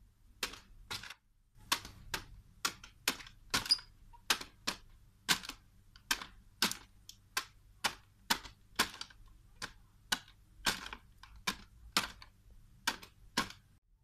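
Budgerigar pecking at its cage toys with its beak, a long run of sharp, dry clicks about two a second, with a short pause about a second in.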